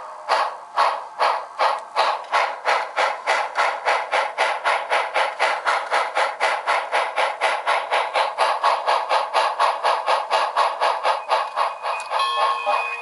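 Model steam locomotive sound from a Tsunami 1000 DCC sound decoder, played through a pair of 20 mm high-bass speakers in an isobaric enclosure: exhaust chuffs that speed up from about two a second to about four or five a second. Near the end a bell starts ringing.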